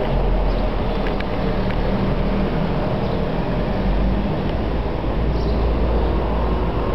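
Steady city street noise: a continuous low traffic rumble with no distinct events.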